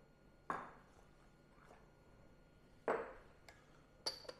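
Small metal dosing cup being handled and set in place under a coffee grinder's outlet: two dull knocks about two and a half seconds apart, then a sharper metallic clink with a short ring near the end.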